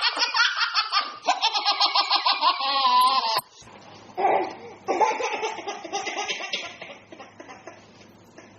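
Hearty high-pitched laughter in rapid pulses that cuts off abruptly about three and a half seconds in, followed by a second, quieter bout of laughter that fades out.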